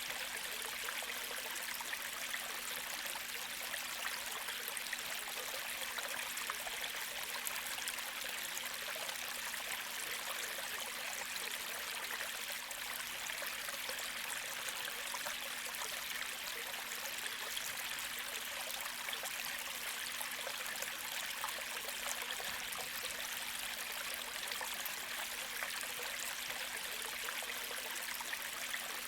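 A gentle creek flowing: a steady, even wash of running water with no breaks or changes.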